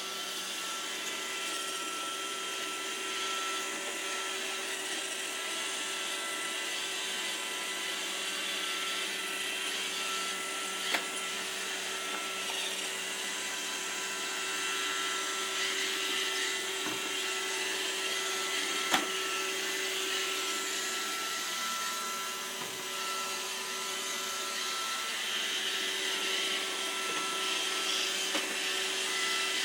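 iRobot Roomba robot vacuum running, its motor and brushes giving a steady whir with a constant hum, broken by two sharp knocks about 11 and 19 seconds in.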